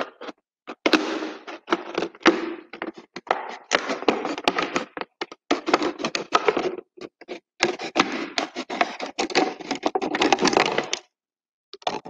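Thin plastic PET bottle crinkling and crackling as it is squeezed, folded and cut with scissors, in irregular bursts full of sharp clicks that stop about eleven seconds in.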